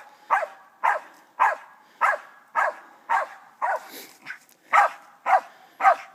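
A squirrel dog tree barking in a steady, even rhythm of about two barks a second: the sign that it has a raccoon treed. The owner calls this barking hammering.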